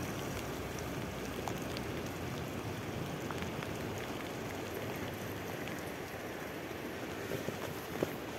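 Steady hiss of rain and wet bicycle tyres rolling on a rain-soaked paved path, with scattered faint ticks of drops and a few small knocks near the end.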